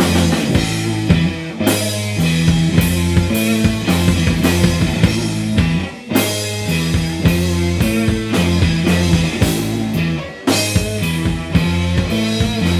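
Live rock trio playing an instrumental passage: a drum kit, electric bass and lead electric guitar, with two short breaks in the playing about six and ten seconds in.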